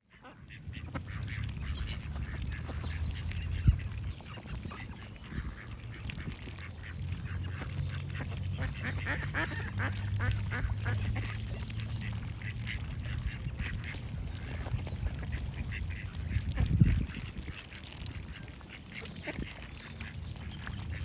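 A duck quacking over and over, with birds singing in the background. Two brief low thumps, about four seconds in and again near seventeen seconds, are the loudest sounds.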